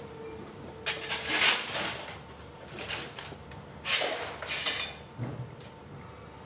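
Metal parts being handled in a workshop: two bursts of clattering and scraping, about a second in and again about four seconds in, with a few lighter clicks between.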